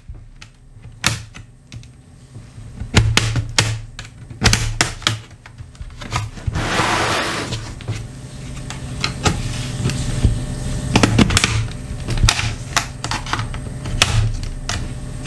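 Small metal pry tool working along the seam of a Dell Inspiron 14 3452 laptop's bottom case, with a run of sharp, irregular clicks and snaps as the case's clips pop loose. A brief scraping noise about seven seconds in.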